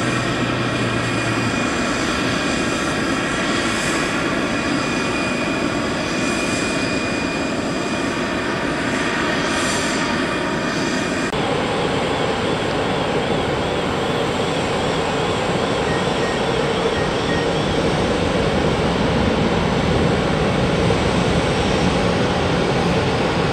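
Jet airliner engines running steadily at low power, a dense rushing noise with several whining tones on top. About eleven seconds in it cuts abruptly to a different, steadier rushing jet noise with fewer tones.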